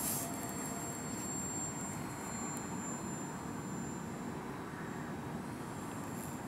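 Electric Micro Squire RC model airplane flying: a faint, steady motor-and-propeller drone under an even rushing noise.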